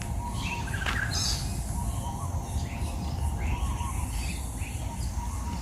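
Birds calling with short chirps every second or so, over a steady low rumble.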